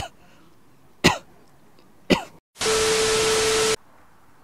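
Three short, sharp vocal bursts about a second apart, each falling in pitch. Just after the third, the sound cuts out briefly and a loud blast of static hiss with a steady tone runs for about a second, then stops abruptly: an edited-in sound effect.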